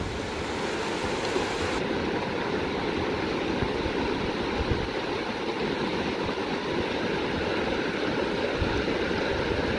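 Shallow river water rushing and babbling over rocks in small rapids, a steady, unbroken rush.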